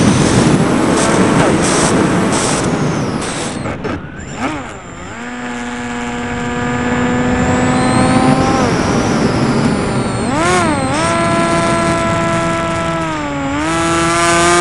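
A homemade RC plane's motor heard from on board in flight, with rushing wind over the airframe. The motor's pitch then settles into a steady drone that swoops down and back up twice, as its speed changes.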